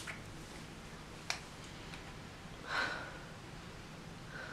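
A person sniffing once, smelling a freshly sprayed perfumed body mist, with a light click about a second before. Otherwise quiet room tone.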